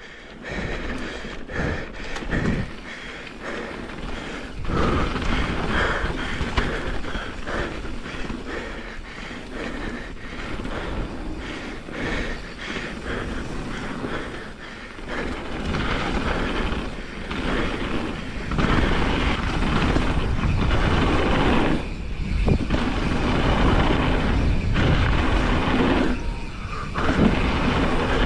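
Enduro mountain bike riding fast down a dirt singletrack: knobby tyres rolling and skidding over the ground, with wind rushing on the microphone and constant knocks and rattles from the bike over bumps. The noise swells and eases with the terrain, with a couple of short lulls near the end.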